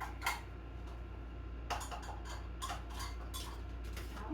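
Irregular light clicks and clinks of kitchen utensils and measuring cups being moved about while someone rummages for a measuring cup, over a steady low hum.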